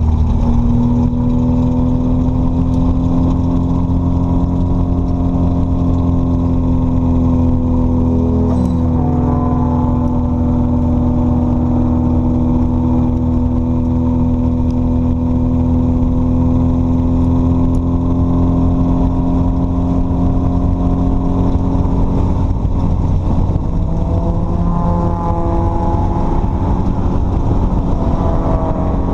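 The Exocet's Mazda Miata 1.6-litre four-cylinder engine runs under way on track, holding fairly steady revs that slowly sag. About nine seconds in there is a sharp click and a quick dip in pitch. Near the end the revs climb as the car accelerates.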